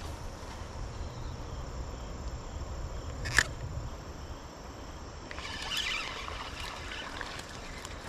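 A spinning reel cranking line back in for about two seconds near the end, a fine rapid whirr, after a short sharp swish about three seconds in. Insects buzz steadily over a low outdoor rumble.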